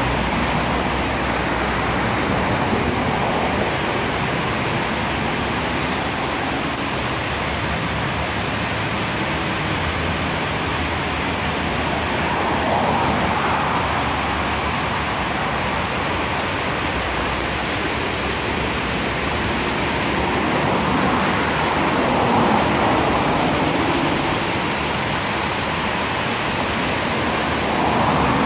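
Steady rush of river water spilling over a low dam's weir and churning into foam below it, with a few gentle swells in level.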